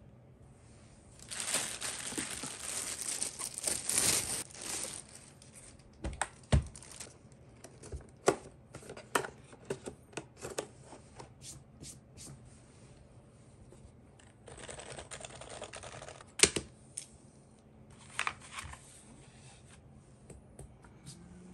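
Packaging crinkling and tearing in two stretches, with scattered clicks and knocks as keyboard parts and tools are handled and set down.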